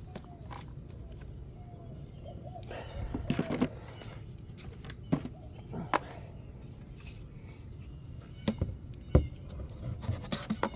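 Scattered clicks and knocks of equipment being handled, over a low steady hum.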